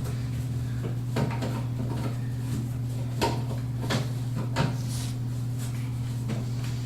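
Plastic knocks and clicks of a PVC P-trap and its slip nuts being pushed and fitted together by hand under a sink: a few separate short knocks over a steady low hum.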